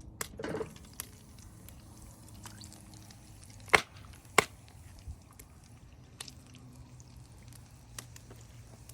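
Catfish frying in hot oil in a skillet: a faint steady sizzle with scattered small crackles, and two sharp pops or clicks, the loudest sounds, a little under four seconds in and about half a second apart.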